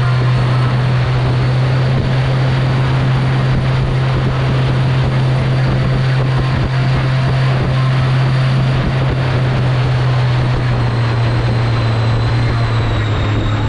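Mini jet boat running at a steady high speed: a loud engine drone with a high jet-pump whine on top that drops slightly in pitch near the end.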